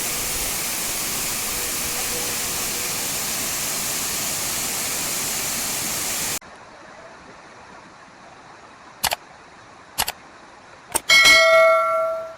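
Waterfall rushing steadily, cut off abruptly about six seconds in. Then, against quiet background, a few sharp metallic strikes and a bell ringing with a clear, several-toned ring that dies away near the end.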